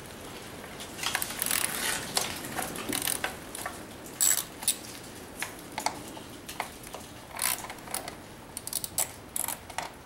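Small ratchet clicking in short runs as the 8 mm coil-pack hold-down bolts are loosened, with scattered sharper metal clicks.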